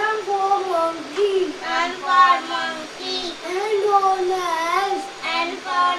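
A young child's high voice singing an alphabet phonics chant in short, drawn-out phrases.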